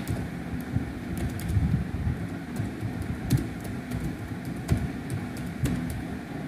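Computer keyboard keys tapped in irregular clicks as text is typed, over a low background rumble.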